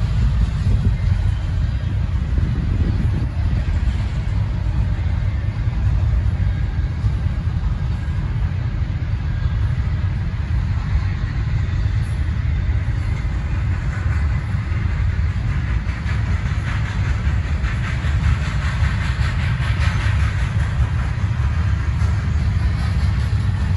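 Freight train cars rolling past on the track: a steady low rumble of wheels on rail, with a higher metallic rattle that builds past the middle.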